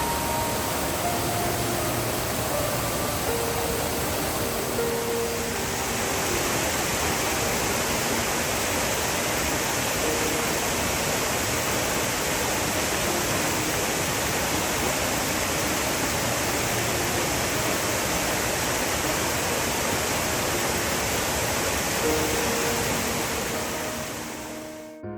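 Steady rushing of water at Shiraito Falls, a wide, low curtain waterfall, turning brighter and hissier about five seconds in and fading out at the end. Soft background music plays faintly underneath.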